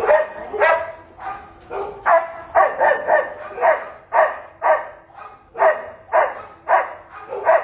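Dogs barking in shelter kennels, over and over at roughly two barks a second.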